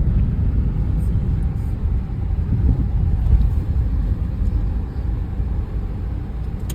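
Steady low rumble with a fluttering, uneven texture, like a boat underway at sea with wind buffeting the microphone.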